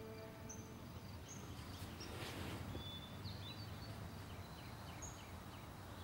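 Quiet morning ambience: low steady background noise with scattered short bird chirps. Soft score music fades out in the first half-second.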